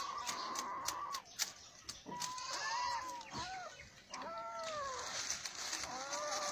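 Trapped puppy whining in distress: a long high whine, then several shorter whimpers that rise and fall, a second or two apart.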